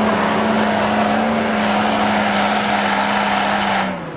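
Off-road 4x4's engine held at high, steady revs under load, one sustained drone. It falls away sharply near the end.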